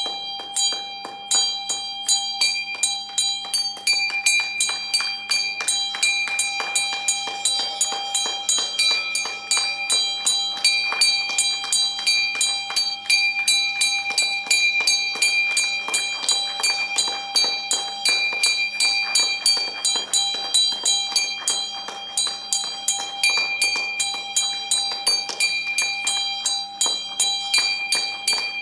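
A bell rung steadily and fast, about two to three strikes a second, its tones ringing on between strokes.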